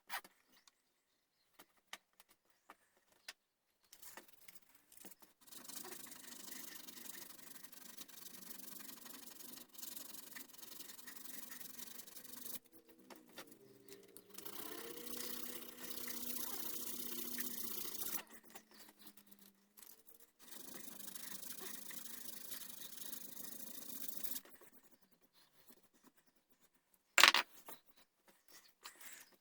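Hand tool scraping and rubbing on the wooden gunstock in long, steady stretches, as the stock is shaped, with a faint wavering tone in the middle and one sharp knock near the end.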